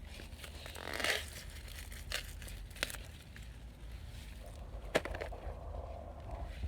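Corn plants' leaves and husks rustling and crackling as ears of sweet corn are handled and picked, with a brief louder rustle about a second in and a few sharp snaps, the sharpest about five seconds in.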